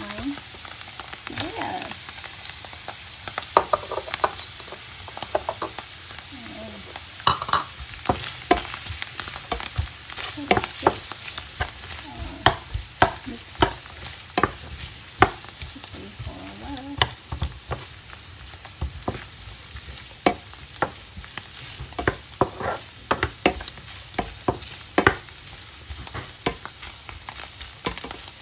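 Sliced mushrooms, and later chopped onion, sizzling in oil in a nonstick frying pan while a wooden spatula stirs them. There are frequent sharp taps and scrapes of the spatula against the pan.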